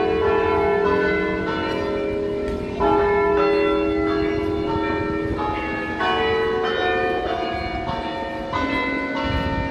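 Tower bells ringing, struck one after another about once or twice a second, each note ringing on under the next.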